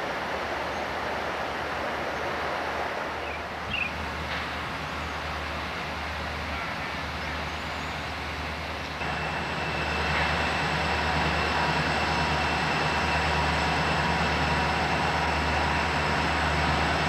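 Southern Pacific diesel locomotive hauling a freight train of piggyback trailers as it approaches: a steady low engine rumble with track noise, growing louder about halfway through as the train draws near.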